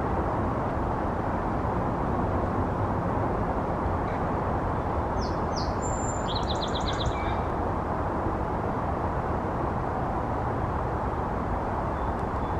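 Steady outdoor background noise with a bird calling about five seconds in: a couple of quick high chirps, then a short fast trill.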